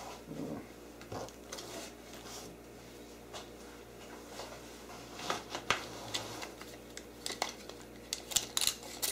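Handling noise of parts in a box: light rustling of bubble wrap and scattered small clicks and taps of plastic and metal. Near the end comes a quick run of sharper clicks as a tape measure is drawn out.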